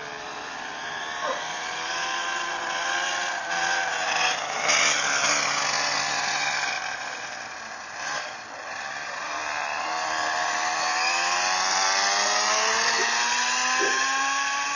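1:10 scale RC car's motor running at half throttle, its pitch rising and falling as the car speeds away and comes back.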